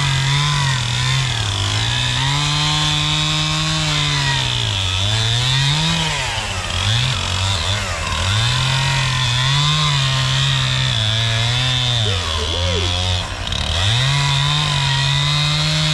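Two-stroke chainsaw running at high revs, cutting through a log. Its pitch sags and climbs back several times as the throttle eases and opens again, with a deeper dip shortly before the end.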